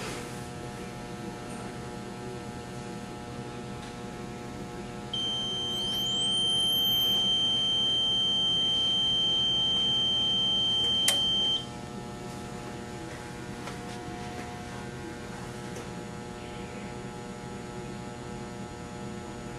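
Steady electrical hum from the surge-test bench. About five seconds in, a loud, steady high beep starts with a rising whine climbing over it; a sharp click comes about eleven seconds in and the beep cuts off just after. This is typical of a surge tester charging and firing a high-voltage surge into the BlackHawk's output.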